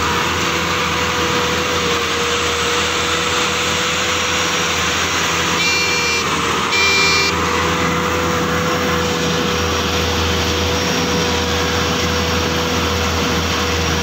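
Maxxi Bimo 110 rice combine harvester running steadily while harvesting, a loud, even engine and threshing drone with a constant whine. Two short beeps sound near the middle.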